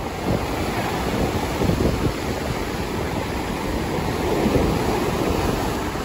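Small waves breaking and washing up onto a sandy beach, with wind buffeting the microphone; the surf swells a little louder about four seconds in.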